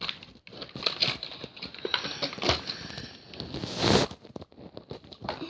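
Plastic packaging crinkling and rustling as hands try to tear it open, with many small clicks and a louder rustle about four seconds in.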